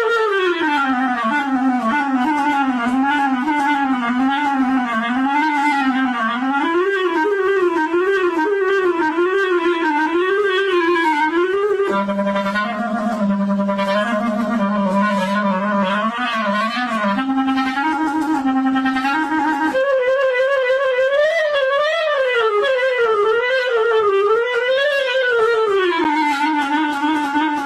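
A single woodwind-like musical tone that slides and wobbles in pitch. It falls steeply at the start, then wavers up and down about once a second. In the middle it steps between short held notes, and near the end it settles on one steady low note.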